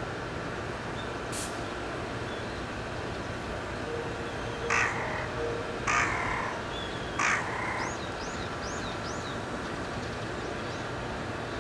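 Three loud bird calls about a second apart, starting a little under five seconds in, followed by a few faint short rising chirps, over steady background noise.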